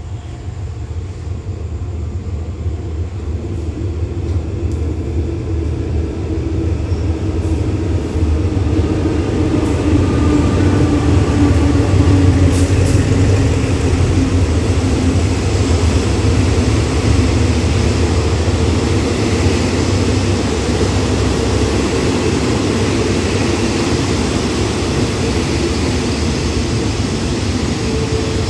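A GEA-class GE diesel-electric locomotive pulls in with its engine droning, growing louder and loudest about ten to thirteen seconds in as it passes. Then its passenger carriages rumble past on the rails.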